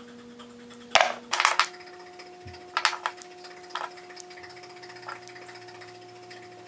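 Small plastic spring clamps snapped onto glued plywood pieces, giving a series of short sharp clicks and clacks, about six of them.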